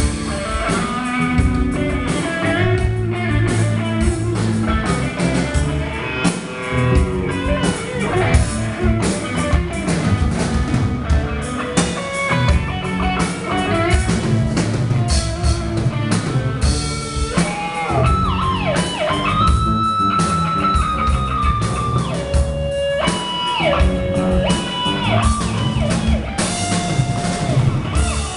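Rock band playing live: electric guitars, bass guitar and drum kit. In the second half, long held high notes slide and bend above the band.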